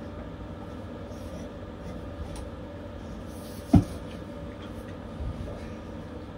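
Steady low background hum with a faint constant tone, broken once a little under four seconds in by a single sharp thump.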